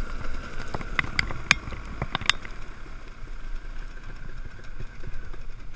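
Enduro dirt bike engine idling, with a handful of sharp clicks or knocks in the first couple of seconds.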